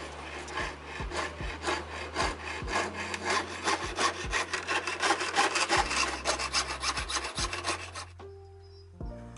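Jeweler's saw blade cutting sterling silver sheet on a wooden bench pin: quick, even sawing strokes, about four or five a second, that stop about eight seconds in.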